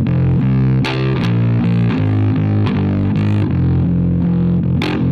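Instrumental music without vocals: a heavy, repeating low riff of held notes, with a few sharp drum hits.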